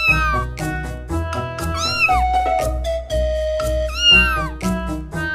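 A kitten meowing three times, about two seconds apart, each call rising then falling, over background music with a steady beat. The third meow, about four seconds in, is the loudest.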